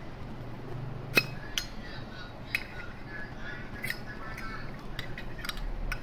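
Brushed chrome Zippo lighter being handled: a series of sharp metal clicks and clinks as the insert is worked out of its case. The loudest comes about a second in, with a short ring.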